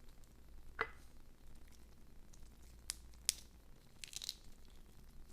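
Faint, scattered clicks and small cracks of blue crab shell and cartilage being crushed and picked apart by hand, with the sharpest snaps about three seconds in and a short cluster just after four seconds.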